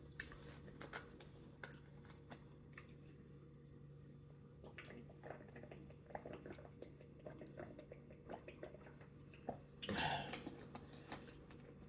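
Close-up mouth sounds of someone chewing salad: soft, irregular crunches and small wet clicks over a faint steady hum. About ten seconds in comes a louder stretch of noise lasting about a second.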